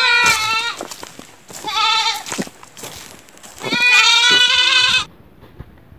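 Goat bleating three times, each call a quavering, held note, the last the longest.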